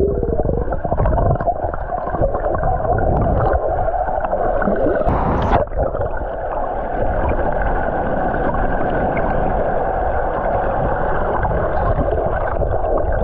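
Rushing water of a waterfall, loud and steady, with a muffled sound that lacks the high end.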